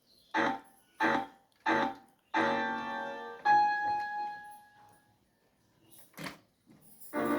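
Casio SA-41 mini keyboard playing: three short notes, then two longer notes that ring and slowly fade, and another short note and a fresh note near the end.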